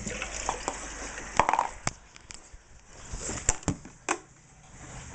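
Handling noise in a kitchen: a scatter of sharp knocks and clicks, with the loudest knock about one and a half seconds in and another cluster about three and a half to four seconds in.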